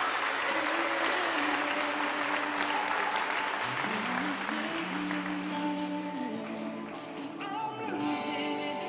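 Audience applauding over background music; the applause fades after about four seconds, leaving the music.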